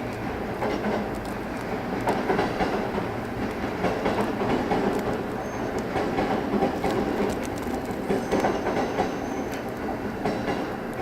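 A train moving through the station at low speed, its wheels clicking and clacking over rail joints and points. Two faint brief wheel squeals come around the middle.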